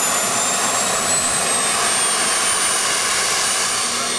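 Small jet engines on a homemade jet cart running steadily: a loud rush with a thin high whine that slowly rises in pitch.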